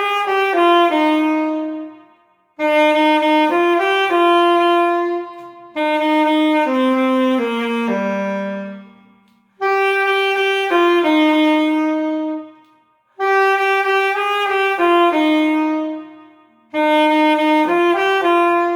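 Solo alto saxophone playing a short melodic phrase about five times, each a few notes stepping mostly downward, with brief pauses between.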